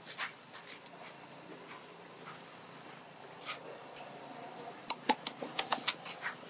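Dry leaves crackling as a long-tailed macaque mother and her newborn move over them: a few scattered clicks, then a quick run of about a dozen sharp crackles from about five seconds in.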